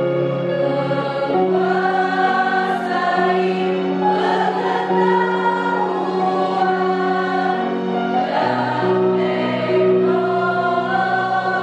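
All-female student choir singing a slow song in harmony, holding long chords that change every second or two, over low sustained accompaniment notes.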